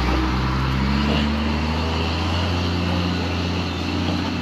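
A road vehicle's engine running close by as it moves slowly past, a low steady hum whose pitch shifts a little.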